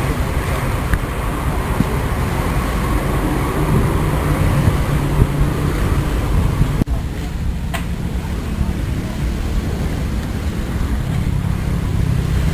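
Steady outdoor background rumble of road traffic, with faint voices. There is a brief dropout about seven seconds in, where the sound changes slightly.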